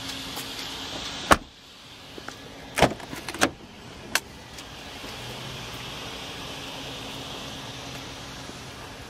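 Car doors of a 2012 Mercedes-Benz E63 AMG: the rear door shuts with one sharp thump about a second in, then a few smaller clicks and knocks as the front passenger door is handled, followed by steady background noise.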